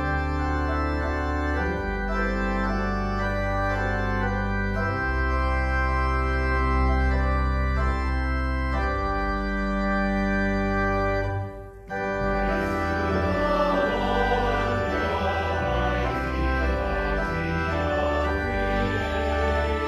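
Church organ playing a slow hymn in sustained chords that change every few seconds, breaking off briefly a little past halfway and then carrying on with a fuller, busier sound.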